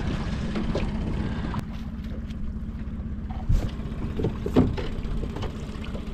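Small outboard motor running steadily at trolling speed, a low, fast-pulsing drone. Two sharp knocks about a second apart come midway.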